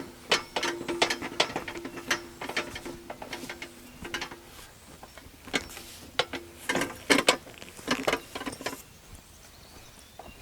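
Ratchet strap being worked, giving uneven runs of sharp ratcheting clicks over a faint steady whir.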